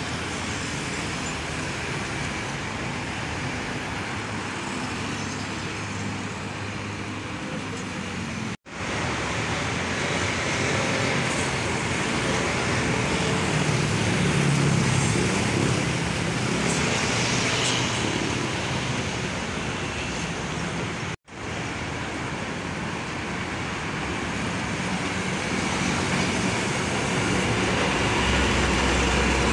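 Street traffic passing close by: heavy diesel trucks and motorcycles driving past, the engine hum loudest about halfway through and again near the end as big trucks go by. The sound cuts out abruptly twice for an instant.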